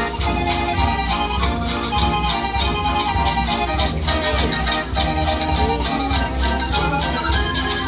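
Dutch street organ (draaiorgel) playing a lively tune: sustained pipe-organ chords over a steady beat from its built-in percussion.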